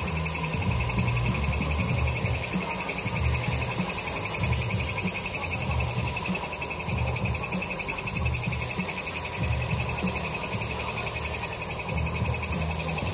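Vertical milling machine running a cut: a steady mechanical whine with a fast, even pulse over a low rumble.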